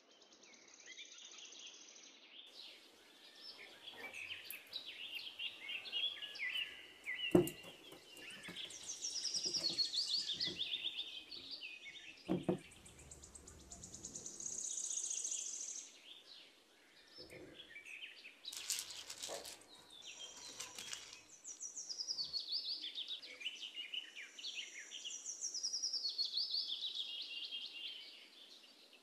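Several birds chirping and singing, with repeated trills that fall in pitch, and a sharp click about seven seconds in.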